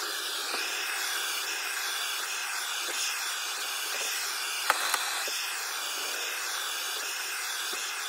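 Handheld propane torch burning with a steady hiss as its flame lightly scorches a wooden axe handle. A single sharp click sounds about halfway through.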